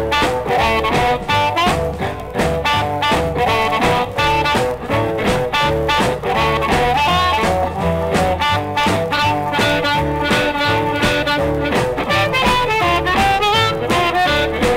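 Early 1950s blues recording: a harmonica lead over a backing band of guitar, bass and a steady shuffling drum beat, with no singing.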